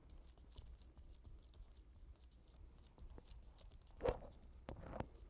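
Faint dry scratching of a broad paintbrush stroking gold paint across paper, with a brief louder rustle about four seconds in and a softer one just before the end.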